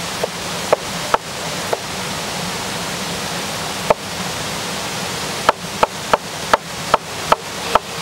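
Knife chopping onion on a wooden cutting board: a few separate chops, then a quick run of about seven near the end, over a steady rush of running water.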